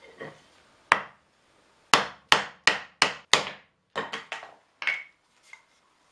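Hammer striking a wooden block set on top of a turned wooden lamp column: one blow, then five quick hard blows at about three a second, then a few lighter knocks.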